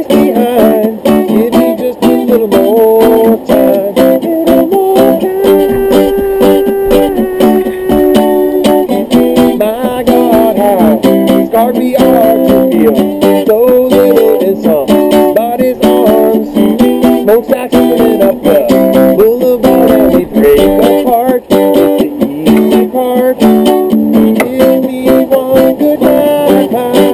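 Guitar music: an instrumental passage of picked notes and strummed chords, with no singing.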